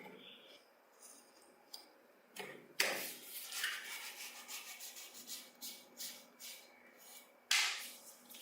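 Hand scraping or rubbing on a small model-car part: quick repeated strokes begin about two and a half seconds in, with a louder scrape near the end.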